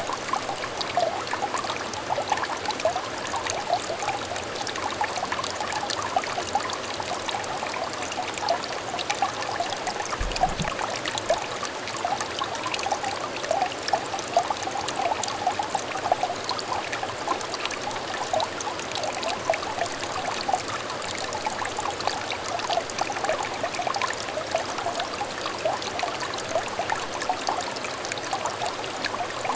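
Small clear stream trickling and babbling steadily, a dense run of little gurgles and splashes.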